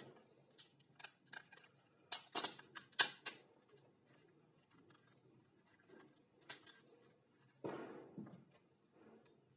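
Scattered light clicks, taps and knocks of small parts and hand tools being handled, with a quick run of sharper clicks about two to three seconds in and a longer scraping knock near the end; no motor is running.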